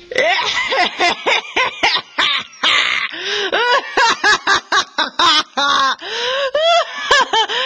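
Wordless human voices in rapid, loud bursts: gasping, wailing and laugh-like cries whose pitch swoops up and down, with longer high wails near the end.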